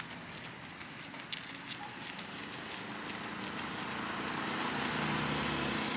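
Street ambience on a wet road: a steady hiss, with the hum of a motor vehicle coming in and growing louder over the last few seconds.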